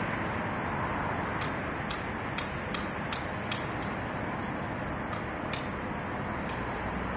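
Steady running noise of idling work trucks and street traffic, with about ten sharp clicks scattered unevenly through it.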